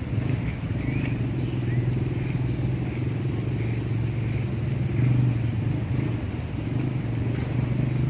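A steady low engine hum, like a small motor running continuously, with a few faint short chirps above it.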